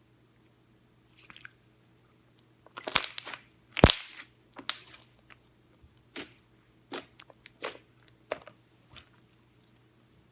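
Slime being squeezed and pressed by hand, giving a string of sharp crackling pops and clicks: a quick cluster about three seconds in, the loudest pop about a second later, then single pops spaced a little under a second apart.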